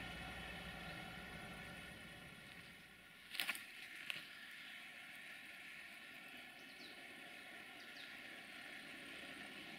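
Faint low rumble fading away, two sharp clicks about three and a half seconds in, then the faint steady sound of a VT614 diesel multiple unit approaching in the distance, with two short chirps near the end.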